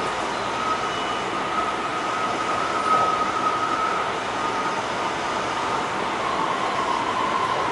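Kyoto Municipal Subway 20 series train with Mitsubishi SiC inverter drive running at speed, heard from inside the passenger car: steady rolling noise with a held high tone that sinks slightly in pitch near the end.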